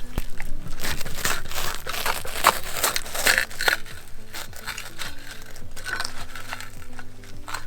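Crinkling of a crisp packet and crunching of food being eaten close to the microphone, an irregular run of crackles, over quiet background music.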